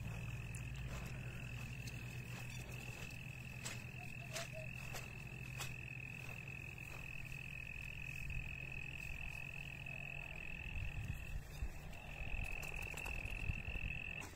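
A steady, unbroken high-pitched chorus of calling frogs or insects. Under it runs a low hum that fades about two-thirds of the way through, with scattered light clicks.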